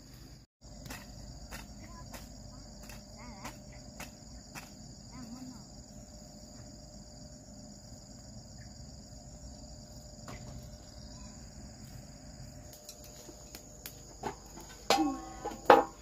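Steady high-pitched insect chorus with many faint scattered clicks; near the end a short, loud pitched call rises over it.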